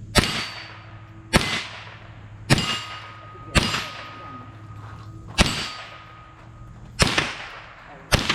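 A .22 LR AR-15-style rifle fired seven times in steady, aimed single shots, about one every second and a half, each crack trailing off in a short echo.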